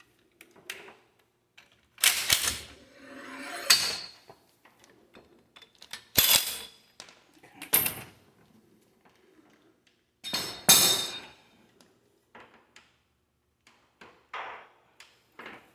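Slide hammer striking to pull a rear axle shaft out of its housing: about five uneven, ringing metal clanks with quieter tool handling between them.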